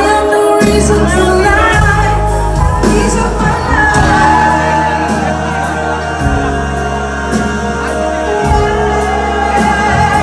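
Live pop-funk band playing loud, with a woman singing lead into a microphone over bass and drums.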